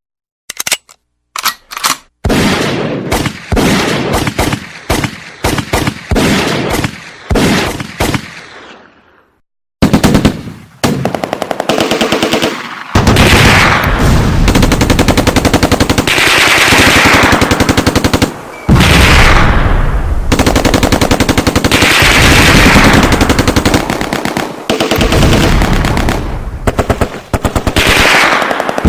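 Gunshot sound effects. First come a few sharp shots and a string of single shots, each with a ringing tail. After a short break about ten seconds in, long bursts of rapid automatic machine-gun fire follow.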